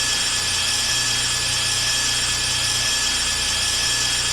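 Police helicopter's turbine engine and rotors running steadily, heard from inside the aircraft as a constant high whine over a hiss and a low rumble.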